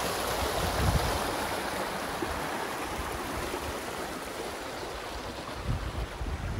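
A rushing mountain stream over rocks, a steady water rush that eases a little toward the end, with a few low thumps.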